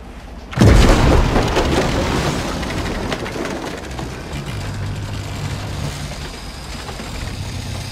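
A sudden loud crash about half a second in, then the rush of churned water over the low steady drone of a shrimp boat's engine as the boat runs on with nobody at the helm.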